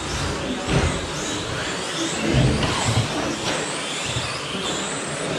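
Several 1/10-scale short course RC trucks racing, their electric motors whining up and down in pitch as they speed up and slow down, with dull thumps from time to time.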